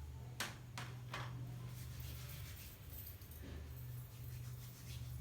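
Three short clicks in the first second or so, then hands rubbing together with hand-rub sanitiser, faint, over a steady low hum.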